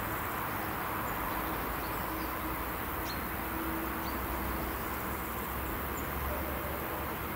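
Faint low rumble of a distant Siemens Velaro RUS "Sapsan" electric train approaching, under a steady outdoor hiss. A few short bird chirps are heard.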